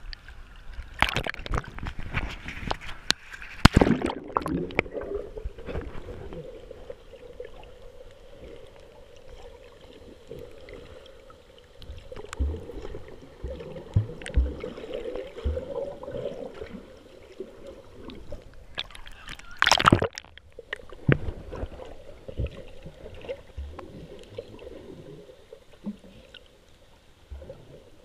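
Sea water sloshing and gurgling around a GoPro Hero 3's waterproof housing as it bobs at the surface and goes under, muffled and murky, with loud splashes in the first few seconds and again about two-thirds of the way through.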